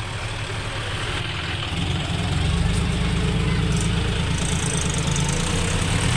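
Diesel tractor engine running at idle with a steady low throb, getting louder about two seconds in.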